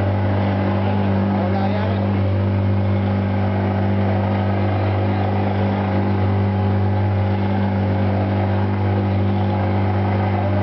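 Passenger launch's engine running steadily under way, a constant low drone with a hiss over it.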